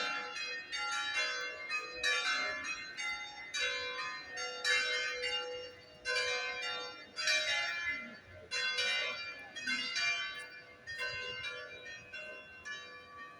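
Church bells ringing, several bells struck one after another in a quick, uneven peal, each stroke ringing on. The peal gets fainter near the end.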